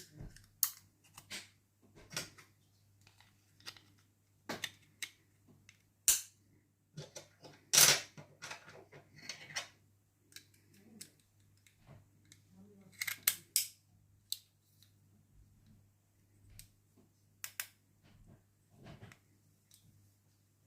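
Irregular small plastic clicks and snaps from a Mercedes key fob being handled, its casing and parts pressed and fitted. The loudest snap comes about eight seconds in.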